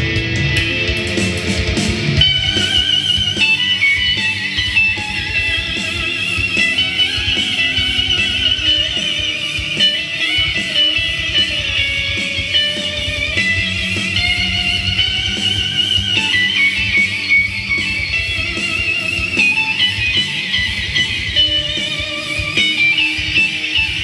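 Clean electric guitar solo through an EarthQuaker Devices Astral Destiny octave reverb pedal, its high lead notes wavering, played over a heavy double-tracked rhythm guitar backing.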